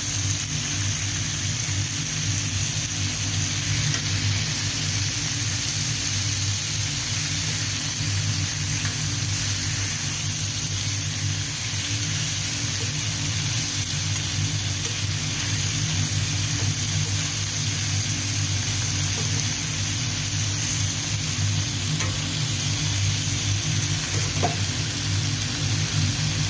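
Chicken pieces sizzling steadily on a hot flat-top griddle, with a metal spatula moving them now and then, over a steady low hum.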